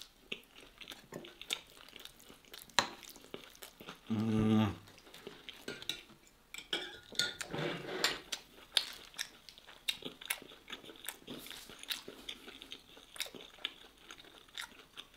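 Close-miked chewing and biting of saucy beef strips, with wet mouth clicks and smacks. A short, low hum from the eater comes about four seconds in.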